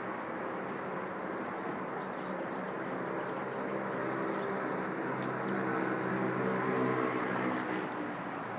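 Steady urban traffic noise with a motor's hum that swells about two-thirds of the way through and then eases off.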